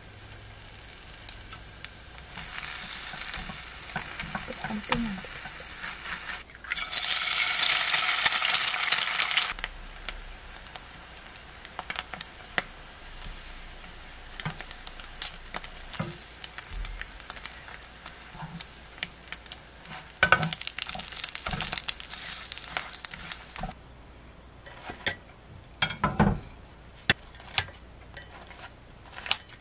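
Egg-and-cabbage tortilla sizzling in a frying pan, loudest for a few seconds about seven seconds in and again around twenty seconds, with a spatula and tongs tapping and scraping. Near the end the sizzle is gone, leaving sharp clicks and snips as kitchen scissors cut the roll.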